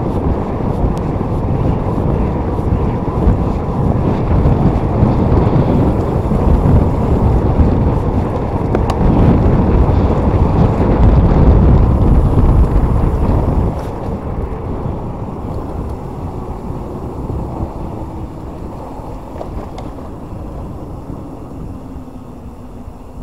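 Wind buffeting the microphone of a handlebar-mounted camera on a moving e-bike, heard as a loud, low rumble. It drops suddenly about 14 seconds in and then fades steadily.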